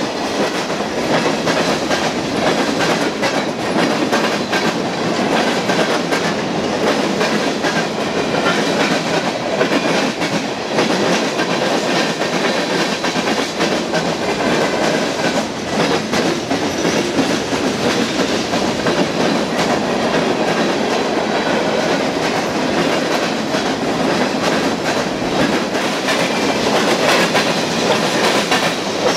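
Freight train of covered hoppers and boxcars rolling past. Its steel wheels make a steady rumble on the rails, with a continual rhythmic clatter over the rail joints.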